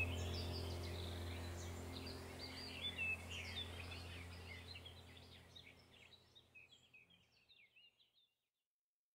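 Birds chirping over a steady low hum, the whole sound fading out gradually to silence over about eight seconds.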